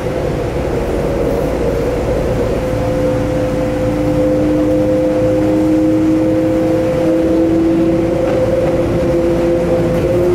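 Kintetsu electric train's traction motors whining as it pulls away from the station, heard from inside the carriage. Two steady tones slowly rise in pitch as it gathers speed, over a running rumble; the lower tone joins about three seconds in.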